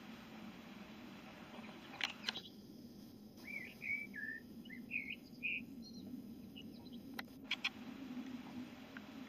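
Faint bird chirps, several short calls in quick succession in the middle, over a low steady hum, with a few sharp clicks near the start and again later.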